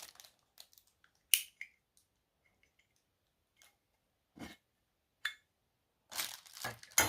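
A few sharp clicks and knocks of a metal pocket lighter being handled and fitted into a plastic storage case, with a quick cluster of clicks and rustling near the end.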